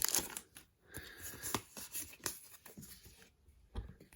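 Rustling and light clicks of a foil booster-pack wrapper and trading cards being handled, with cards slid out of the opened pack.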